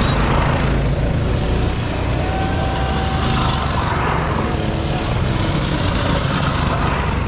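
Small mini bike engines running steadily as riders pass one after another on a dirt course.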